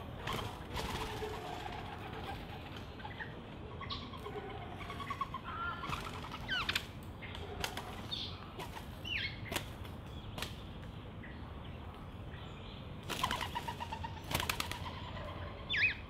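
Birds feeding at a seed tray: scattered short chirps and whistles, some gliding up in pitch, mixed with quick wing flaps and sharp clicks. The busiest, loudest stretch comes near the end, closing on a rising whistle.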